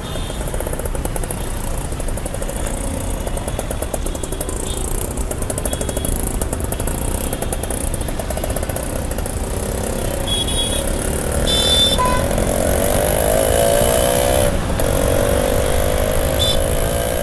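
Dense Indian street traffic: a steady rumble of engines from motorbikes and auto-rickshaws, with short horn beeps scattered throughout. In the second half one engine revs up twice, its pitch rising each time.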